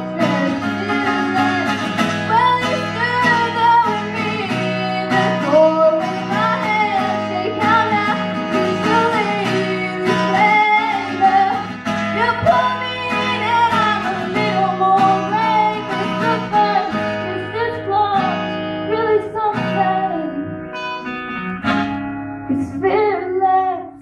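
A young female singer singing a song into a microphone while strumming an acoustic guitar.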